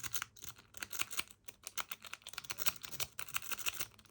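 A lock-picking rake being scrubbed in and out of a Master Lock 7804D padlock's keyway under tension, giving rapid, irregular metallic clicking as the pins bounce.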